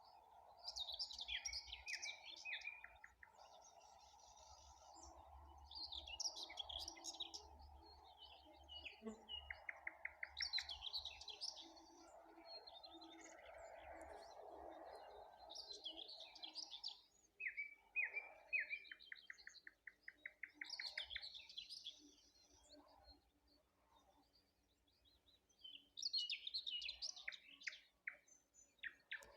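Dawn birdsong: a songbird repeats a short phrase of high notes, each ending in a rattling trill, about every five seconds. Other birds chirp faintly around it. For the first half or so, a steady high whine of mosquitoes buzzing close by runs underneath and then fades out.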